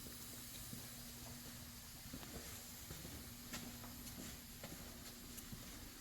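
Quiet room tone: a faint steady hum over a background hiss, with a few soft clicks in the second half.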